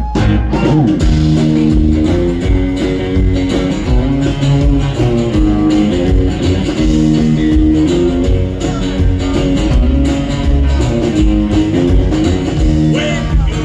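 A live rockabilly band playing an instrumental passage, with guitar to the fore over a steady beat.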